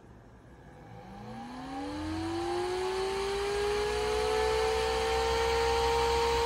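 PWM-controlled computer fan spinning up. A whine rises in pitch from about a second in and levels off, over a growing rush of air. The fan is speeding up as a fingertip warms its SHT45 temperature sensor.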